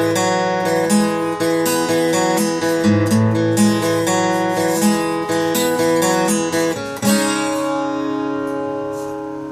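Takamine D50 acoustic guitar played, a quick run of struck notes and chords, then a final chord struck about seven seconds in and left to ring out, slowly fading.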